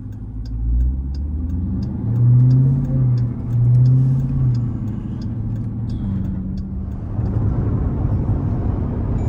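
Jeep Grand Cherokee Trackhawk's supercharged V8 under way, swelling loudly in two surges of acceleration in the first half, then running steadily. A steady ticking runs over it.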